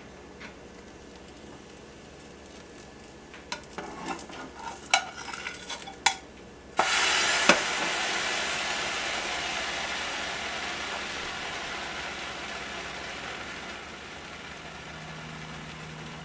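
Grilled cheese sandwich frying in a nonstick skillet. A plastic spatula taps and scrapes against the pan a few times. About seven seconds in, a loud sizzle starts suddenly as the sandwich meets the hot pan, then slowly dies down.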